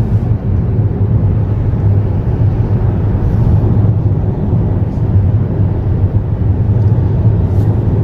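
Steady road noise inside a moving car's cabin: a constant low drone of tyres and engine with no change in pitch.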